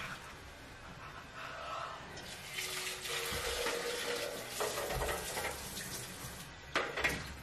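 Kitchen tap running into the sink for a few seconds, water splashing, then turned off. A couple of sharp knocks near the end.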